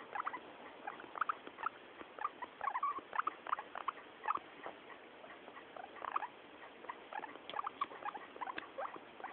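Guinea pig making a run of short, irregular high calls, several a second, with a brief lull about halfway through.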